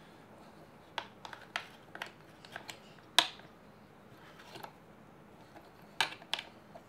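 Scattered sharp metallic clicks and taps of two Allen keys on the axle pin bolt of a caster-board wheel as the bolt is turned loose, the loudest click a little after three seconds and two more close together near the end.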